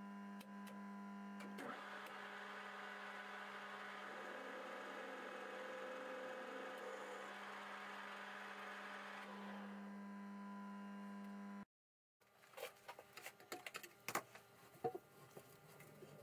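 Harrison M300 lathe running with a steady hum while the tool cuts the spinning workpiece, a hissing metal-cutting noise from about two seconds in to about nine. After a cut, light metal clicks and taps of a part being handled at a bench vise.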